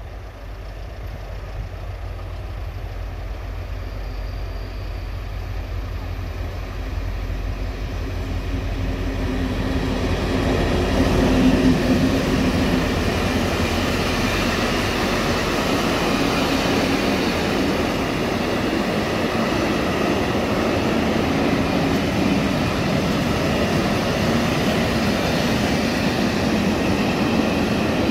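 EMD G26C diesel locomotive's two-stroke engine approaching with a low rumble that grows steadily louder, loudest about eleven seconds in as it passes. A long train of freight wagons then rolls past with steady wheel and rail noise.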